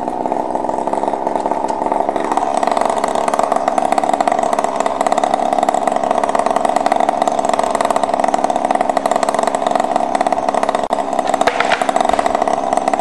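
Chainsaw running at high revs, held steady through a long cut into an alder tree.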